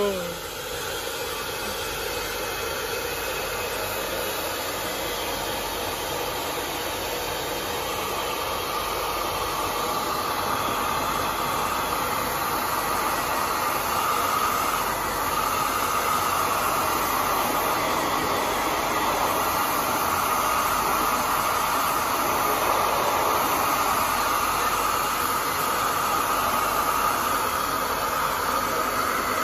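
Handheld hair dryer running steadily, blowing hot air onto the iced-up evaporator coil of a split-type air conditioner to melt the ice. Its steady rushing hiss grows a little louder over the first ten seconds or so, then holds.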